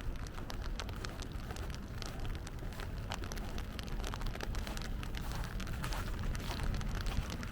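Rain falling, with many sharp, irregular drop ticks close by over a low, steady rumble.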